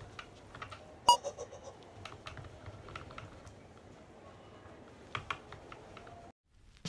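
A cloth rubbing over a thin clear plastic panel, with many light irregular clicks and taps as the flexible sheet shifts. About a second in comes one sharper knock that rings briefly.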